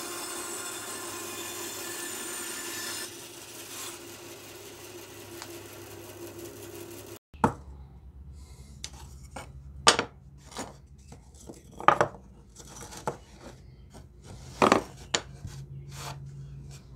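A bandsaw cutting through a block of sycamore for about three seconds, then running on more quietly without cutting until it stops short. After that, wooden lure blanks are handled and set down on a workbench, with a series of sharp wooden clacks, several of them loud.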